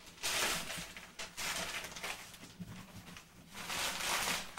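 Metallic gift-wrapping paper being crinkled and torn off a present, in several short bursts of rustling.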